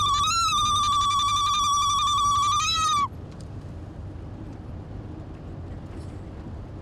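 A woman ululating: one long, high-pitched trilled cry held on a nearly steady pitch with a rapid warble. It rises briefly and then cuts off suddenly about three seconds in, leaving low background noise.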